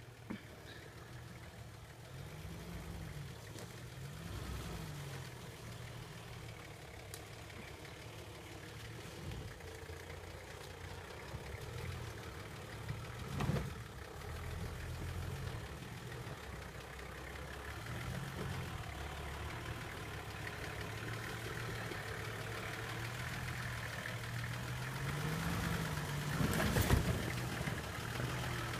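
Off-road SUV engine pulling up a steep rutted dirt slope, its note rising and falling again and again as the throttle is worked, growing louder as it approaches. A sharp knock about halfway through and a louder thump near the end.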